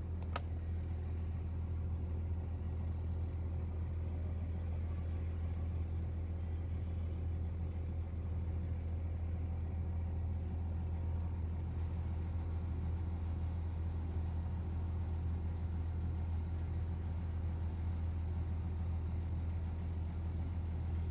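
A steady low mechanical hum that holds one pitch throughout.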